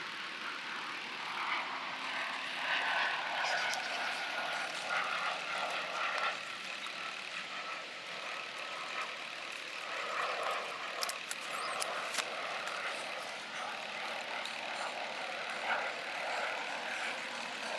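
Steady background noise of distant engines, with a few faint clicks a little past the middle.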